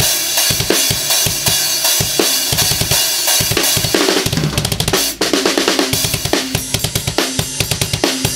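Drum kit played with snare and cymbals, its kick drum fitted with a Click-kick acoustic click membrane (heavy model, in the slot nearest the head) that gives each bass drum stroke a sharp click attack. About five seconds in the kick goes into a fast, even run of double-pedal strokes. Heard through the camera's built-in microphone.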